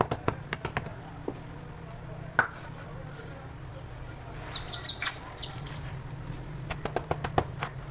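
Dry sand-cement blocks being tapped and crumbled: a series of sharp taps and crunches that come in short clusters, with one single louder tap in between.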